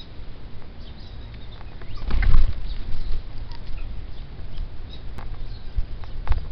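Wings of a squirrel cuckoo flapping as it lands on the rim of a tire water dish, a short burst about two seconds in, followed by a few light taps.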